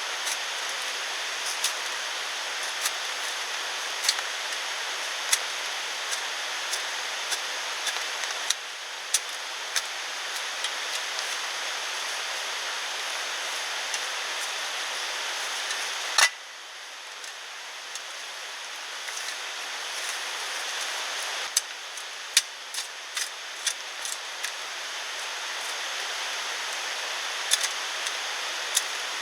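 Steady rain hiss with scattered sharp drip taps throughout; the hiss drops abruptly a little past halfway, then slowly builds back.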